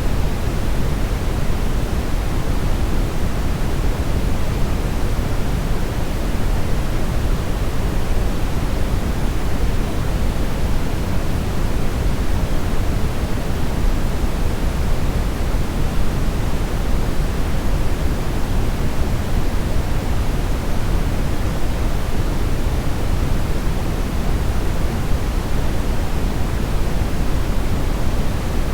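Steady brownish noise: an even, unbroken hiss weighted toward the low end, with no tones or events in it.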